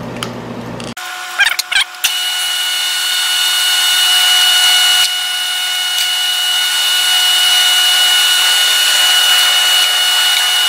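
Drill press spindle running with a steady whine while a twist drill cuts down through a metal part, with a few brief squeaks about a second and a half in.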